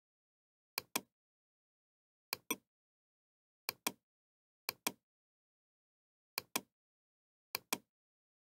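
Computer mouse button clicks, six of them about a second or so apart. Each is a quick double tick of press and release.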